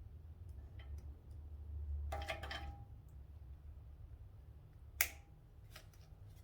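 Scattered clicks and a brief clatter, with a faint ring, of tools and metal parts being handled during motorcycle disassembly. One sharp click about five seconds in is the loudest sound, over a steady low hum.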